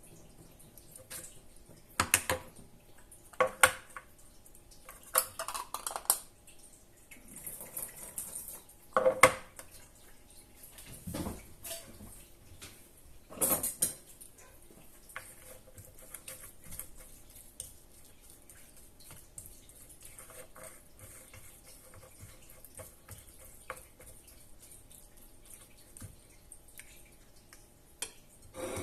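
Dishes and cutlery clinking and knocking during food preparation. Several sharp knocks come in the first half, then only soft small taps.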